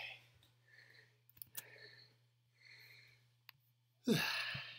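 A man breathing out hard and audibly, out of breath from dancing, with a few soft breaths and faint clicks, then a loud sigh-like exhale near the end.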